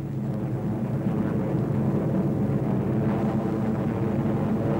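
Lockheed P-38 Lightning's twin piston engines droning steadily in flight.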